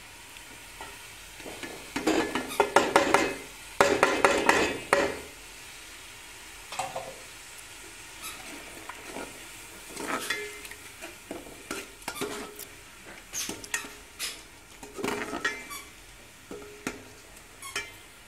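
Metal spoon stirring and scraping around a metal cooking pot while an oil-and-tomato masala sizzles in it. The heaviest scraping comes in two runs about two and four seconds in, then shorter scrapes follow every second or two.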